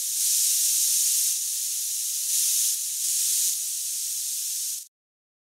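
Aerosol spray-paint cans hissing in one continuous spray that swells louder three times, then cuts off suddenly near the end.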